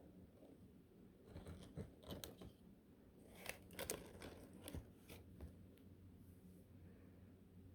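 Iguana biting and tearing into a collard green leaf: quiet, crisp crunches and rips in two short runs, about a second and a half in and again from about three and a half to five and a half seconds in.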